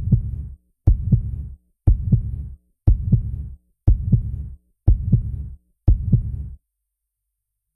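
Heartbeat sound effect: seven deep double thumps, one a second.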